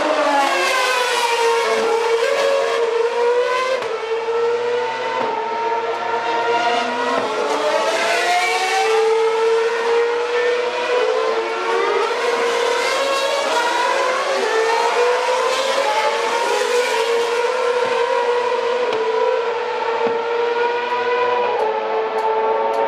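Several 2012 Formula 1 cars with 2.4-litre V8 engines running past one after another at high revs, their engine notes overlapping continuously and pitches falling and rising as they pass, lift off and accelerate.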